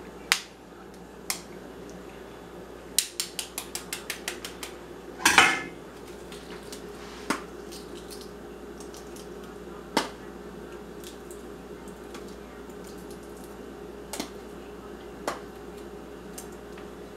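A hard-boiled egg's shell being tapped with the butt of a kitchen utensil to crack a small circle in its end: a few single light taps, then a quick run of about a dozen taps, one louder knock, and more scattered single taps. A faint steady hum runs underneath.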